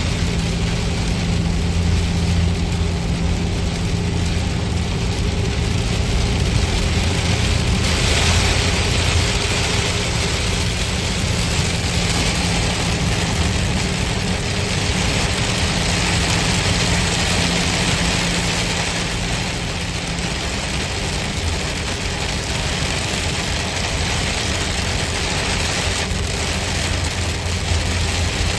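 Steady car cabin noise while driving on a highway in heavy rain: a low engine hum under the hiss of tyres on the wet road and rain on the windshield. The hiss grows louder about eight seconds in.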